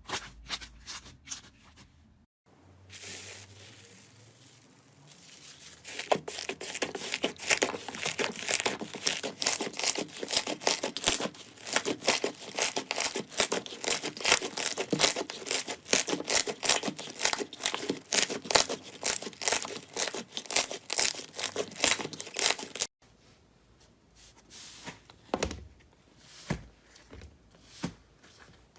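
Slime being squeezed and pressed by hand, crackling and popping. After a few scattered clicks, a long, quick run of crackling pops sets in and stops suddenly, followed by a few sparse pops.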